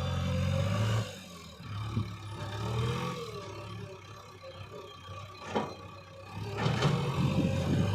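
Heavy diesel machinery engine working at a soil-loading site. It runs loud, then eases off for a few seconds and picks up again near the end, with a couple of sharp knocks in between.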